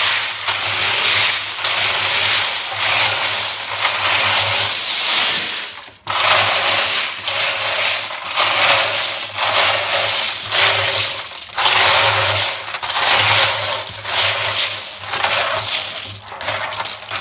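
Brass rifle cartridge cases, wet-tumbled clean, pouring and sliding out of a tipped cement-mixer drum onto a screen: a dense, continuous metallic jingling and clattering that comes in surges and breaks off for a moment about six seconds in.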